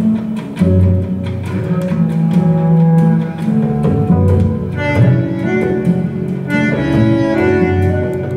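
A 45 rpm vinyl LP playing through high-end AudioMachina loudspeakers: music with a strong, deep bass line under higher pitched notes.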